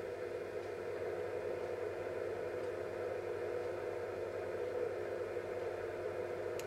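Steady background hum with a faint hiss, unchanging throughout, with no distinct clicks or other events.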